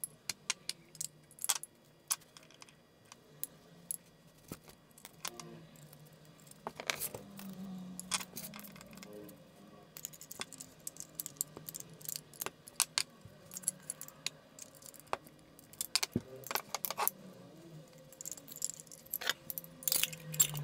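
Small metal parts of a guitar effects pedal being handled during reassembly: scattered light clicks and clinks as the folded anodized-aluminum enclosure halves, jacks and screws are turned over and fitted together.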